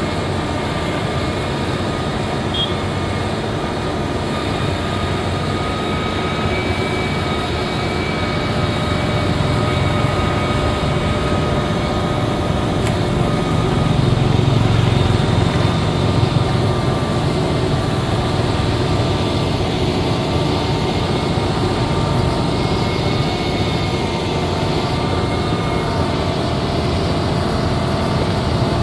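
Liugong motor grader's diesel engine running steadily under load, a constant drone that grows a little louder around the middle.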